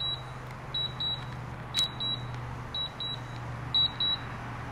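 DJI Mavic Pro remote controller beeping in pairs of short high beeps about once a second, its alert while the drone flies an automatic return-to-home. A low steady hum runs underneath, and a single sharp click comes about two seconds in.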